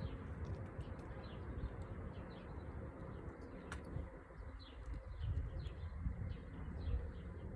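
Small birds chirping repeatedly, short high notes falling in pitch a few times a second, over a low steady rumble. One sharp click a little before four seconds in.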